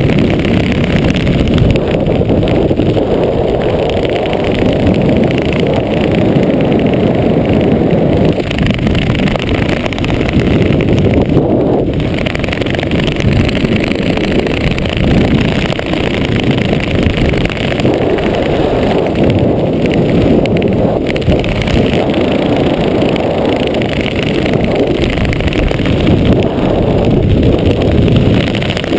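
Wind buffeting a GoPro's microphone during a parachute descent under an open canopy: a loud, steady low rumble and rush of air.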